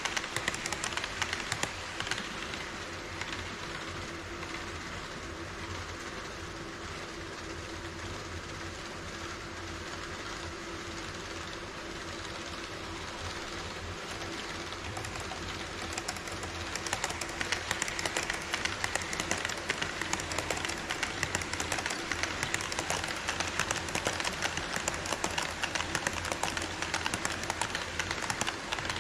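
HO-scale model trains running on sectional track: rapid clicking of wheels over rail joints. The rattle is loud for about the first second as an E5 Shinkansen model passes close by, eases to a quieter steady running noise, then grows louder again from about 17 seconds as an EF81-hauled Twilight Express model approaches and passes.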